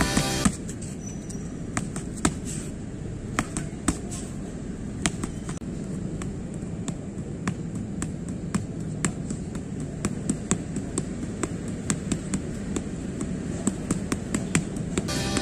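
Boxing gloves striking focus mitts in quick combinations: sharp slaps at irregular intervals, often in twos and threes, over a steady low background rumble.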